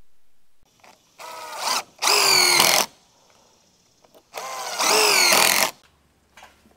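Power drill driving screws into 5V metal roofing, two runs a couple of seconds apart, each getting louder partway through.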